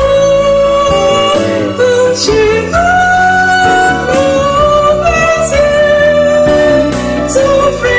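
A woman singing a Twi-language gospel song solo over instrumental backing, in long held notes that slide from pitch to pitch.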